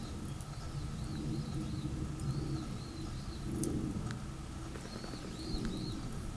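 A small bird calling in series of short, arched chirps, over a steady low rumble.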